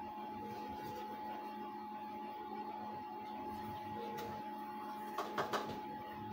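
Cotton candy machine running, its motor-driven spinning head giving a steady hum with a clear high tone over it. A few light clicks come about five seconds in.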